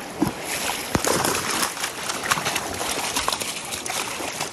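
Water splashing and sloshing in a shallow, stony river close to the microphone, with many sharp knocks and clicks scattered through it.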